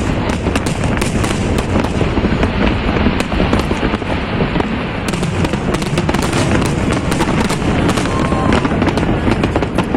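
Fireworks and firecrackers going off in a dense, unbroken barrage of sharp cracks and bangs over a constant rumble.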